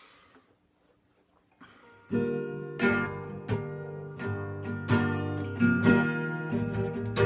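Acoustic guitar with a capo, strummed in chords as the intro of a song. About two seconds of near silence come first, then the strumming starts suddenly and keeps a steady rhythm.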